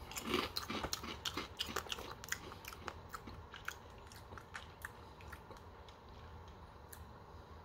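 A person chewing dry Lucky Charms marshmallow-cluster cereal pieces, with many crisp crunches. The crunches are dense for the first few seconds, then thin out and grow fainter as the mouthful is chewed down.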